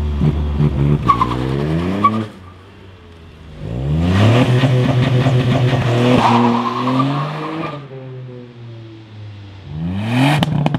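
Ford Fiesta ST's 1.5-litre turbocharged three-cylinder engine heard at the exhaust under launch control: revs held steady with rhythmic popping, rising and falling away. They then climb sharply and hold high with crackles for a few seconds as the car launches, before dropping and rising briefly once more near the end.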